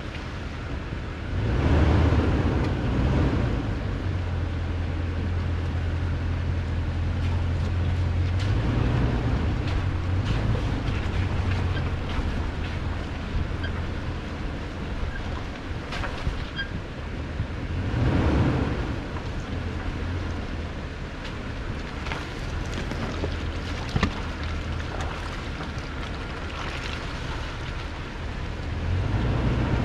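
A 2018 Toyota Tundra's V8 runs with a steady low drone as the truck creeps along a rough dirt trail. Rushing noise swells up several times, and there are a couple of sharp ticks.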